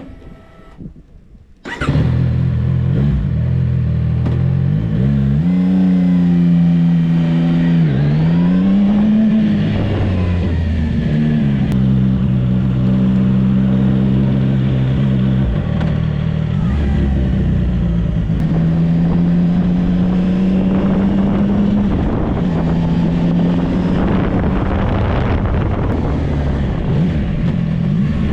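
A 2025 CFMOTO 675 SR-R's inline-three engine through its stock exhaust, coming in abruptly about two seconds in, then running with revs rising and falling several times between steadier stretches.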